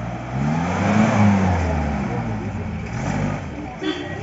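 Mahindra Thar's engine revving up and dropping back, then revving again, while the stuck 4x4 fights for traction.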